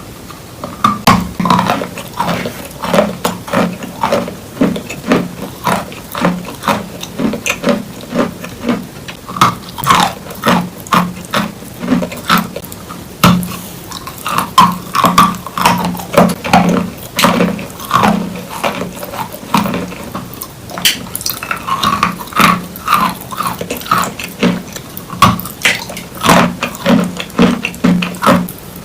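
Wet chalk being bitten and chewed close to the microphone, a run of crunching bites about one or two a second.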